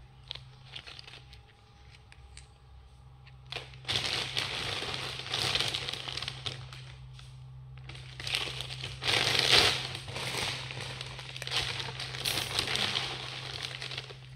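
A plastic bag crinkling and rustling as it is handled, faint with a few clicks at first, then loud and continuous in bursts from about four seconds in. A steady low hum runs underneath.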